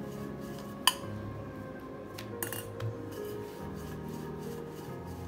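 Soft background music, with a few sharp clinks that ring briefly, the loudest about a second in and two more around two and a half to three seconds in, as square paratha dough is rolled out with a wooden rolling pin on a hard work surface.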